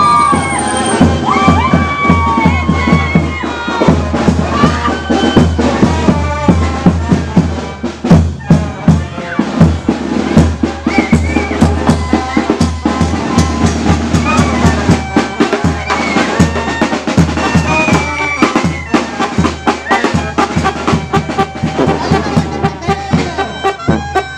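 Band music with drums and a bass drum beating steadily under a melody line.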